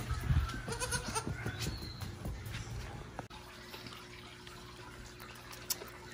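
A newborn goat kid bleats faintly about a second in, with light knocks and taps on a wooden floor. It goes quieter after about three seconds.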